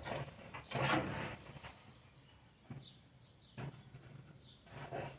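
A man's short low grunts and murmurs, several times, with rustling as a wiring harness is pushed through the firewall.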